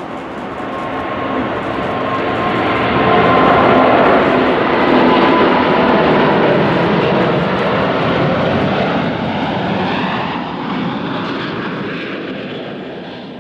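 Airbus A380 jet engines at takeoff power: a loud rumbling roar with a thin whine. It swells to its loudest about four seconds in, then slowly fades as the aircraft passes and climbs away.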